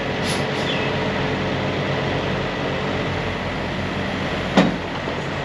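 Truck engine running steadily, with a single sharp click about four and a half seconds in.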